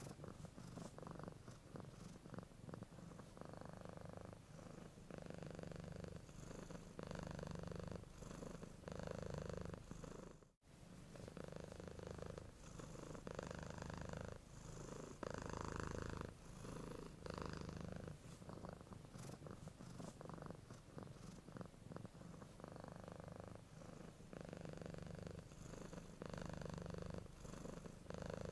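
Domestic cat purring close up, a steady low rumble that swells and eases with each breath, about one breath every one to two seconds. It breaks off for a split second about ten seconds in.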